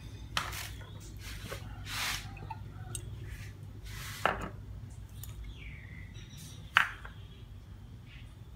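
A spoon clinking and scraping against an enamel plate as sauces and chopped garlic and chilies are spooned onto raw morning glory: three sharp clinks, the loudest about four and seven seconds in, over a low steady hum.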